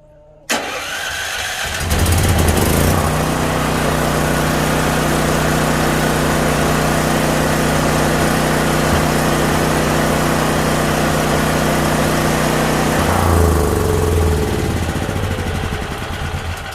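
Dual-fuel portable generator engine, set up to run on gasoline, started by its remote electric start: the starter cranks briefly and the engine catches about two seconds in, then runs steadily. Its sound changes and fades over the last few seconds.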